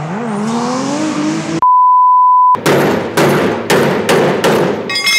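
A car engine revving with its pitch climbing, cut off about a second and a half in by a loud, steady one-second beep tone; then five heavy knocks about half a second apart, and a ringing chime near the end.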